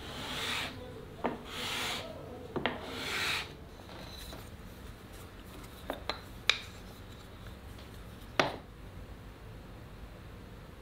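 Three scraping strokes of a hand tool worked by hand over a workpiece in the first few seconds, then several short, sharp knocks.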